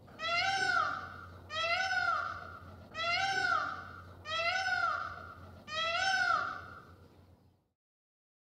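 Peacock calling five times in a row, about one call every 1.3 seconds, each call rising then falling in pitch.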